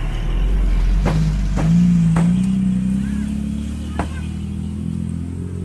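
A motor vehicle's engine running close by, its pitch rising slowly and loudest about two seconds in. Over it come four sharp knocks of a cleaver chopping grilled pig head on a round chopping block.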